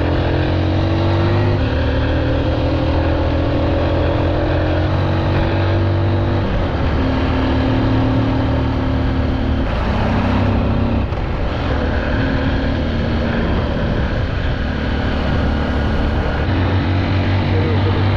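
Honda 150cc dirt bike's single-cylinder engine running under way, its pitch rising gradually over the first six seconds, then dropping and shifting up and down several times, over a steady rushing noise.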